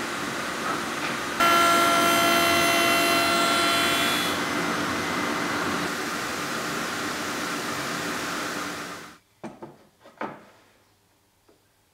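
Sliding table saw running, with a louder whine for about three seconds from a second and a half in as the blade cuts across a stack of hardwood strips. The machine noise cuts off suddenly about nine seconds in, leaving a few faint knocks from handling on the bench.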